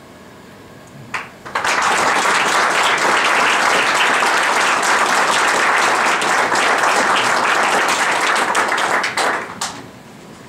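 Small audience applauding: a single clap about a second in, then steady clapping from about a second and a half in that dies away near nine seconds.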